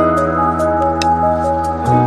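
Background music: a calm ambient track of held chords with light ticking percussion, the bass and chord changing near the end.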